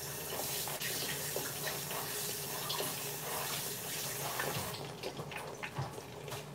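Kitchen sink faucet running as hands are washed under it, with a few light splashes; the water shuts off about five seconds in.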